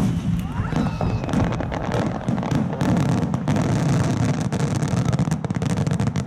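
Fireworks finale barrage: a rapid, continuous run of shell bursts with deep booms and crackling, one report after another with no gap.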